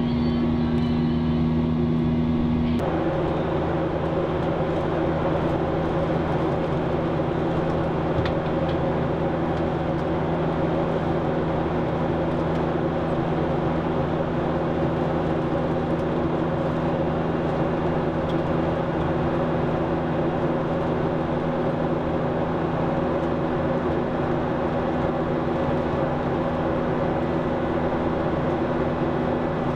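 Steady in-cabin drone of a Boeing 737-800 in flight: its CFM56 jet engines and the rush of air along the fuselage, with a low hum. About three seconds in, some higher steady tones stop and the hum shifts slightly in pitch, then the drone runs on evenly.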